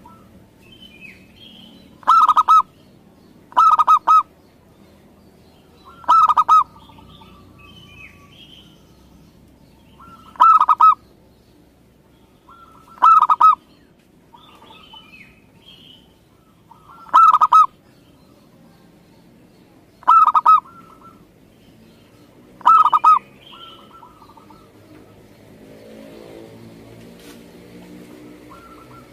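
Zebra dove (perkutut) cooing: eight short calls a few seconds apart, each a quick run of notes. Faint chirps of other small birds come between them.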